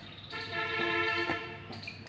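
A vehicle horn sounding one steady held note for about a second.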